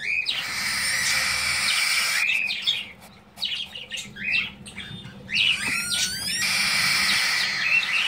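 Cockatiel chicks food-begging in the nest: long hoarse, hissing calls broken by short rising chirps.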